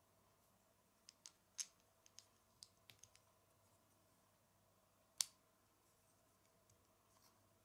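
Small plastic Lego bricks clicking as they are handled and pressed together: a run of light clicks in the first three seconds, then one sharper snap about five seconds in.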